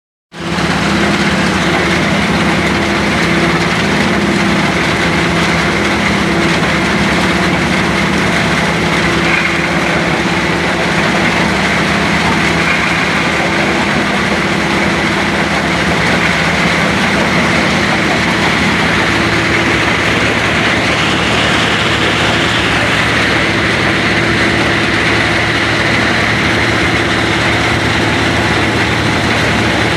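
Stone crusher machinery running steadily: a loud, continuous mechanical din with an engine hum underneath.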